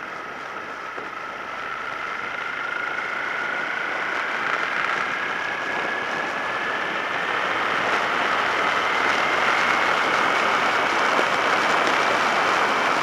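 Suzuki SV650S V-twin engine pulling through a gear as the motorcycle gains speed, its whine rising slowly in pitch, with road and wind noise on the bike-mounted camera growing louder as it goes.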